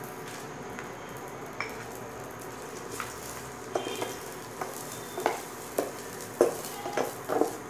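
Fox nuts, cashews, almonds and raisins roasting in a little ghee in a stainless steel pan with a steady low sizzle. A spatula stirs and scrapes against the pan, its knocks coming more often in the second half.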